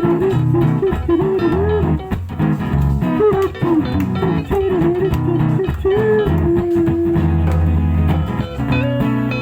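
Live guitar and bass playing an instrumental break: a lead guitar melody with bent and sliding notes over a bass line and chords, holding one long note about two-thirds of the way through.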